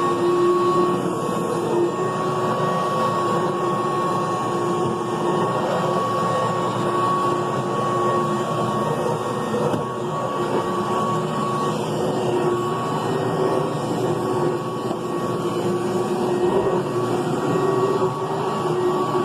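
Upright vacuum cleaner running steadily over carpet, its motor giving a constant whine over a dense rushing noise, with small rises and dips in level as it is pushed.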